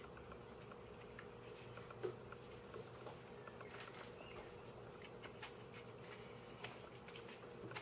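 Faint, sparse clicks and taps of small 3D-printed plastic puzzle pieces being picked up from a wooden table and fitted onto a Dino cube, the clearest about two seconds in, over a faint steady hum.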